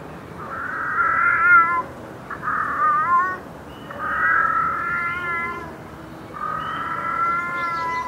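An animal calling over and over: about five drawn-out, fairly high-pitched cries, each about a second long, several wavering in pitch near the end.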